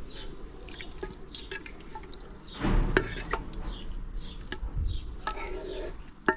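Water poured from a plastic bottle into a cast-aluminium Afghan kazan of meat-and-vegetable stew while a ladle stirs it, with light clinks against the pot and a louder knock about two and a half seconds in.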